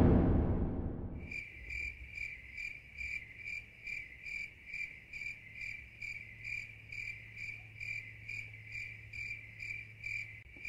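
Heavy-metal music fades out over the first second. Then an insect chirps in a steady, even rhythm of about two and a half high chirps a second.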